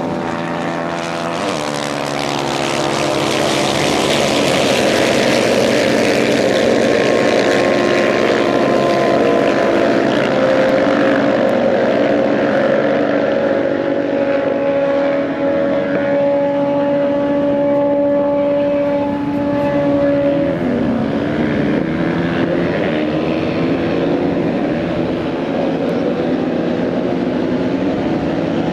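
Several motocross bike engines running hard in a race, a steady high-revving drone of overlapping engine notes that rise and fall as the bikes accelerate and ease off. About two-thirds of the way through, one engine note drops sharply in pitch.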